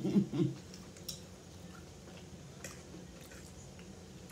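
Faint eating sounds: a few scattered soft clicks over a low steady hum, after a brief trailing bit of voice at the start.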